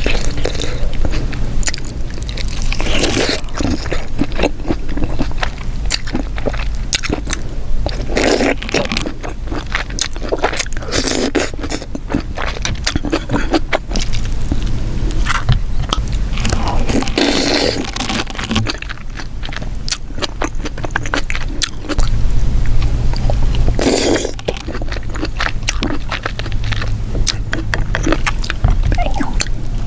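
Close-miked eating of sauce-covered seafood: wet chewing and smacking, with many irregular clicks and scrapes from shells being handled. A steady low hum lies under it.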